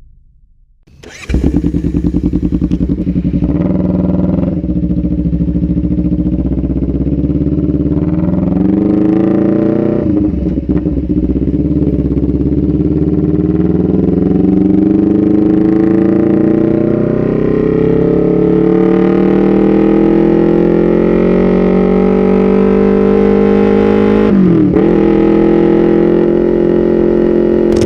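2017 Honda CBR250RR parallel-twin engine through a loud, short Proliner TR-1 full-system aftermarket exhaust. It starts up about a second in and runs, its pitch climbing slowly for most of the time. Near the end it dips sharply and comes straight back up.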